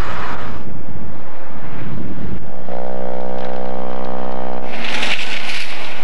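Vehicle noise in snowbound traffic. About halfway through, a steady pitched tone sounds for about two seconds, and a burst of hiss comes near the end.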